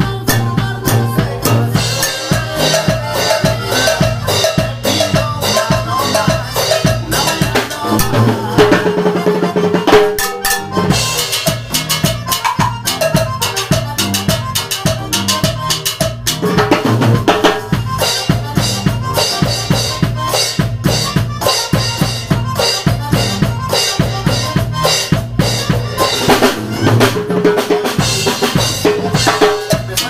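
Timbales, a pair of metal-shell drums, played with sticks in a fast, continuous rhythm.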